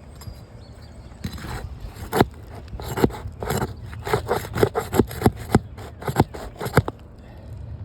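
Asphalt shingles being pried up and unsealed from the sealant strip beneath them: a quick run of short scraping, rasping strokes, several a second, starting about a second in and stopping near the end.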